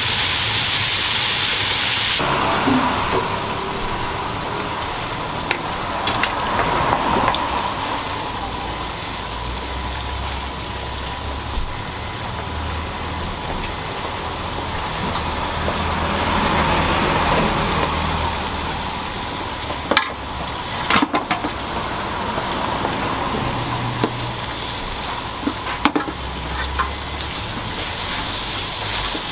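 Steady sizzling of food frying in oil, with a few sharp clicks of utensils about two-thirds of the way in and again near the end.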